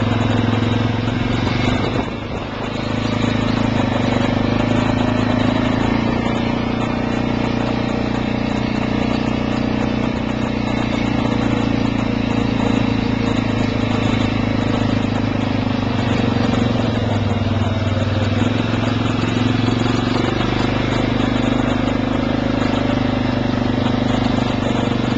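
ATV engine running steadily while being ridden, dipping briefly and then picking up a little about two seconds in.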